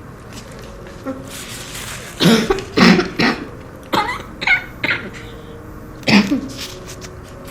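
A person with a cold coughing: a string of short coughs in a few bouts, starting about two seconds in.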